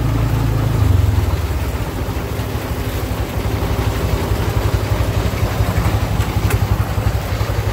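Tractor engine running with a Krone KR 125 round baler working behind it. About a second in, the engine note drops and takes on a fast, even pulsing. There is a single sharp click about six and a half seconds in.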